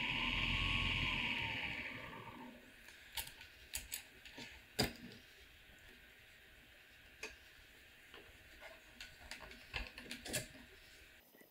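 Small motor of a ring-making mini lathe running steadily with its chuck and ring mandrel spinning, then spinning down and falling quiet about two seconds in. After that come scattered light clicks and taps of metal lathe parts being handled.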